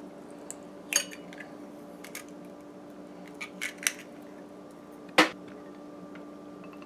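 An eggshell cracked with a knife blade about a second in, followed by light clicks as the shell is pulled apart over a ceramic bowl. Just after five seconds there is a sharp clink as the white ceramic bowl meets the glass mixing bowl.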